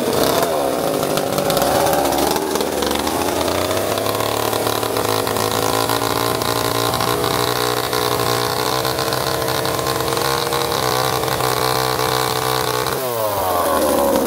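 Chainsaw running while cutting into a small tree trunk. Its pitch holds steady for most of the time, drops sharply about 13 seconds in, then climbs back up.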